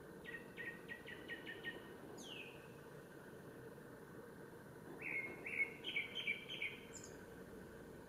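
Male Japanese thrush singing: a phrase of quickly repeated whistled notes ending in a high falling note, then about five seconds in a louder second phrase of repeated notes.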